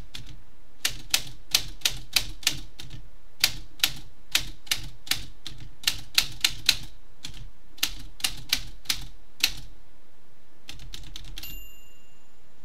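Typewriter keys striking the platen one at a time at an uneven pace, with short pauses between bursts. Near the end comes a quick run of small clicks and a single bell-like ring, typical of the typewriter's end-of-line bell.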